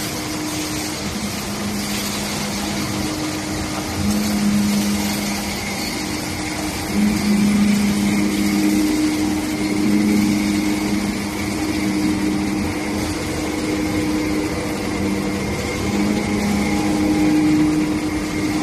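Steel wire drawing machine running steadily, with a low motor hum that switches between two pitches every second or two.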